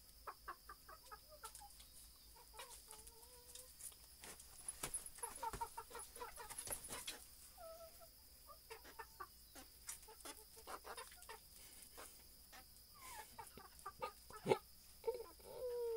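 Chickens clucking faintly in short, scattered calls, with a longer falling call near the end, over light clicks and knocks.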